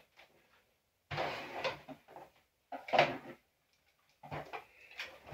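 Small plastic toy wheelie bins clattering and knocking as a plastic grabber tool grips them, lifts them and tips them into a cardboard box, in a few irregular bursts with short knocks near the end.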